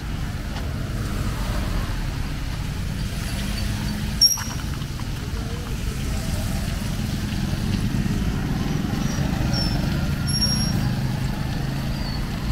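Steady rumble of street traffic, with one sharp click about four seconds in and a few faint short high squeaks later on.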